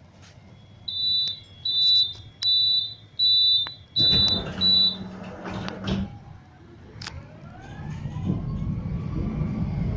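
Tram door-closing warning: six short, high two-tone beeps, a little under one a second. About four seconds in the doors shut with a thud and a brief hum. Near the end the tram's traction motors start a rising whine as it pulls away.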